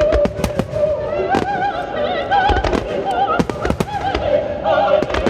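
Fireworks bursting in an irregular rapid series of sharp bangs over music with an operatic singing voice that wavers in pitch.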